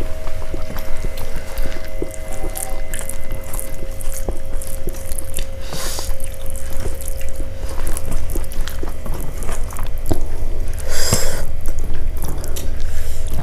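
Eating sounds: fingers squishing and mixing soft moong dal khichuri on steel plates, with wet smacks and small clicks, over a steady low hum. A brief louder noise comes about six seconds in and again, stronger, about eleven seconds in.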